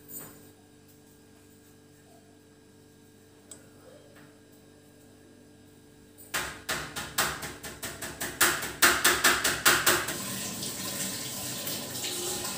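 Knife chopping vegetables on a plastic cutting board in quick strokes, about five a second, starting about six seconds in after a quiet stretch. It gives way near the end to a steady hiss.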